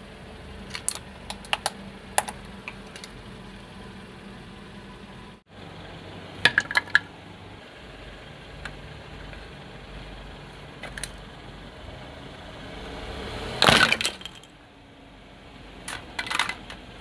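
Hard plastic toys cracking and snapping under a slowly rolling car tyre: short clusters of sharp cracks and clinks, the loudest about 14 seconds in. A car engine idles steadily underneath.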